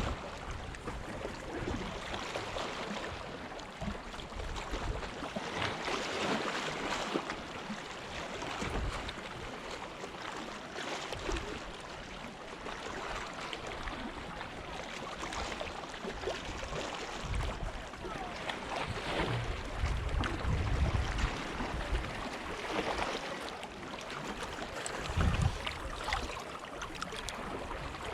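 Sea water washing against rocks, rising and falling in uneven surges, with occasional low rumbles.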